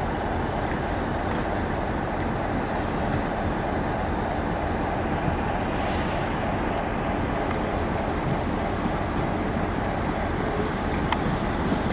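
Train running with a steady rumble, and a single sharp click near the end.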